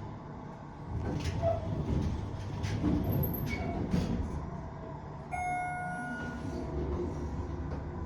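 Elevator car running: a low rumble with a run of knocks and clunks through the first half, then a single bright ding about five seconds in.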